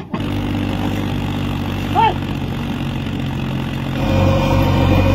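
Mahindra 275 DI tractor's three-cylinder diesel engine running steadily while hauling a trolley of soil, with one brief high-pitched sound about two seconds in. About four seconds in it gives way to a louder JCB backhoe loader's diesel engine running.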